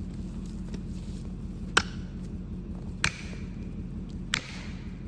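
Three sharp strikes about 1.3 s apart, each with a short ringing tail, over a steady low engine hum.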